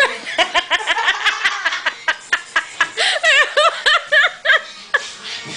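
High-pitched giggling and laughter: a quick run of short laughs, rising again about three seconds in.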